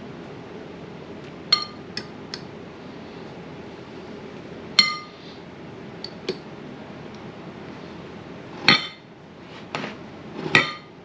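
Metal fork clinking and tapping against a ceramic bowl while dipping a piece of fish in egg wash: irregular sharp clinks with a short ring, the loudest about five seconds in and near the end.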